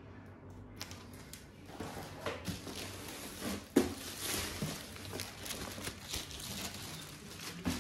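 Cellophane-wrapped firecracker boxes being handled and lifted out of a cardboard carton: plastic wrapping crinkling and rustling against cardboard, with a sharp knock about four seconds in.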